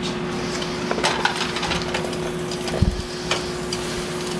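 Onions and peppers sizzling in hot oil in a frying pan, with a few light knocks and a steady low hum underneath.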